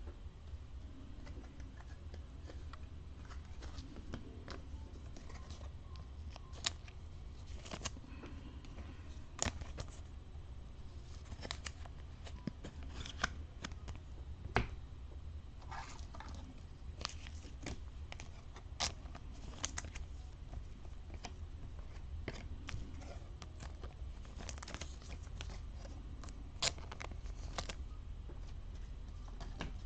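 Hands sleeving trading cards: thin clear plastic sleeves crinkling, with scattered sharp clicks and snaps as cards are handled. A steady low hum runs underneath.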